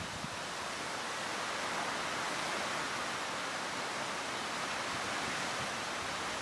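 Steady, even outdoor rushing noise with no distinct events in it.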